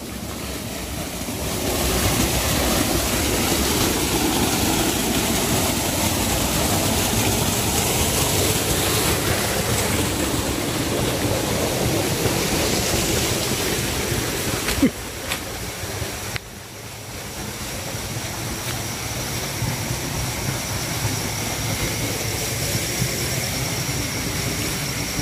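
Steady rush of river water, with a single knock about fifteen seconds in. A faint, thin, high steady tone joins in the second half.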